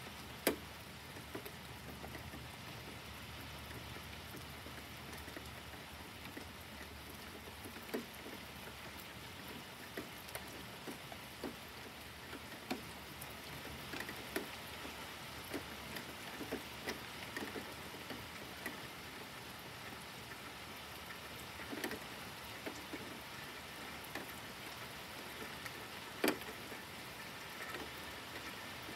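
Faint steady rain, with irregular single drips tapping close by; the sharpest tap comes about half a second in and another a few seconds before the end.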